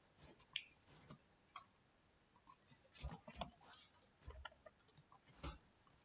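Faint, irregular clicks of keys being typed on a computer keyboard, a scattering of separate keystrokes with short pauses between them.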